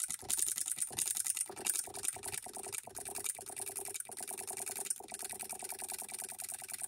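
Hand-built model solenoid (electric) hit-and-miss engine running with rapid, even clicking and a steady hum underneath. It is held down by a hand gripping its crankshaft, so it fires on every stroke.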